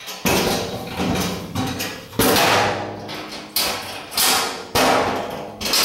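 Sheet-steel mill-stand cabinet being rapped and its door banged shut: a series of about six sharp metallic knocks, each ringing out briefly.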